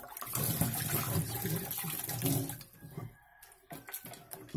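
Water running into a cooking pot for about three seconds, then stopping, with a few light knocks near the end.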